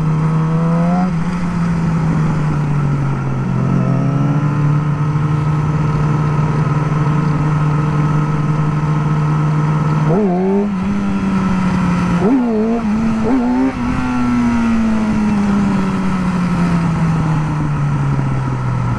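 Motorcycle engine heard from the rider's seat while riding, holding steady revs with a short rise and fall early on. About ten seconds in the revs jump sharply, rise quickly twice more over the next few seconds, then fall slowly as the bike eases off.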